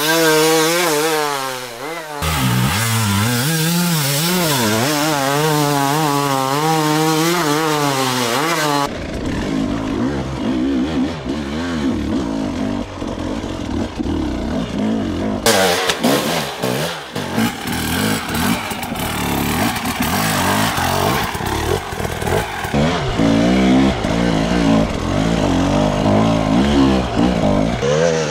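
Two-stroke enduro motorcycle engines revving under load on steep climbs, the pitch wavering rapidly up and down as the riders work the throttle. The sound changes abruptly twice, about nine seconds in and again near the middle, as different bikes take over.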